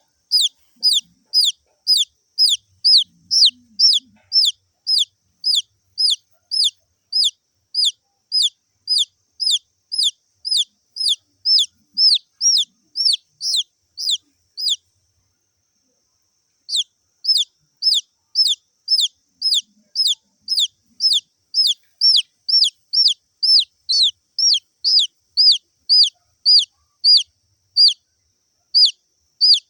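A baby chick peeping over and over, about two high peeps a second, each sliding down in pitch. The peeping breaks off for about two seconds midway, then carries on.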